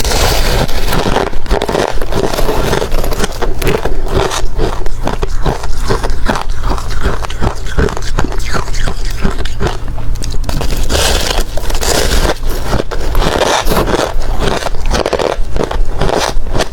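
Hard ice being bitten and chewed close to the microphone: a loud, rapid, continuous run of sharp crunches and crackles.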